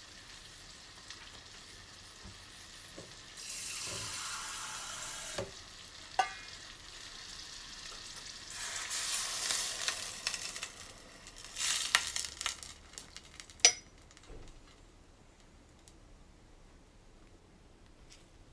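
Kitchen work sounds: a hiss of water being added to a saucepan of sliced carrots, a couple of sharp knocks with a short ring, another hiss, then aluminium foil crinkling and crackling with one loud snap, before it goes quiet.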